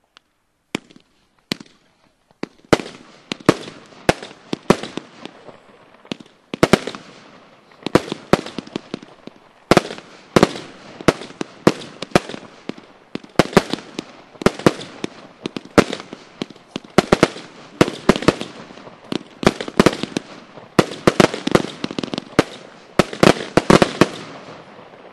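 China Label Silver Explosion firework firing shot after shot: a few single bangs at first, then dozens of sharp bangs, often several a second, with crackling between them, until just before the end.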